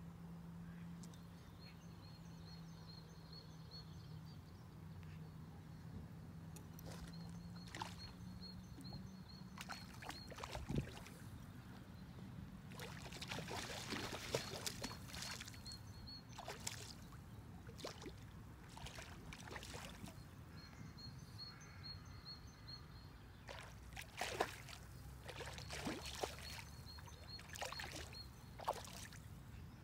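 A hooked trout thrashing and splashing at the lake surface as it is played on a fly rod, in short bursts of splashing around the middle and again near the end.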